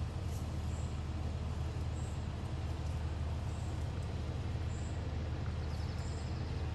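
Steady low rumble of distant road traffic, with a short high chirp repeating about once every second.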